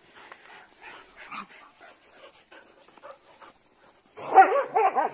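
Dog giving a quick run of high, wavering whines and yelps about four seconds in, straining on its leash in excitement. Before that, only faint scuffing of walking.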